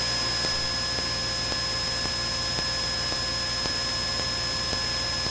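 Steady cabin drone of a Cessna 172N's four-cylinder Lycoming engine and propeller in flight, with a thin constant high whine over it.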